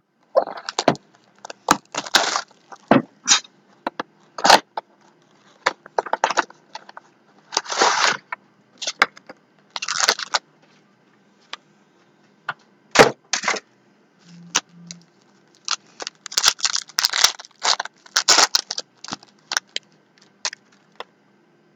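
Basketball card packs and their packaging being opened by hand: irregular crinkling and tearing of plastic wrap with sharp clicks and snaps in between.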